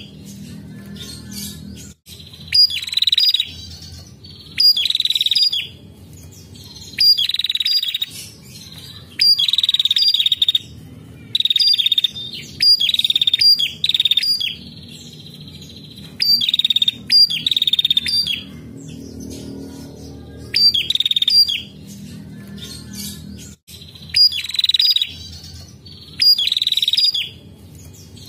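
A female prenjak calling in loud bursts of rapid, high-pitched chattering, each under about a second long, repeated every second or two, over a steady low hum.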